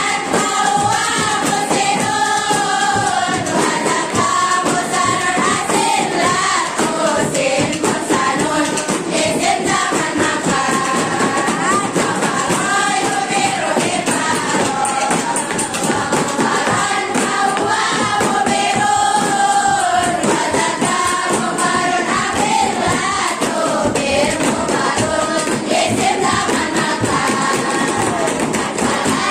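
A group of girls chanting Arabic verb conjugation forms (tashrif) together in a sing-song melody.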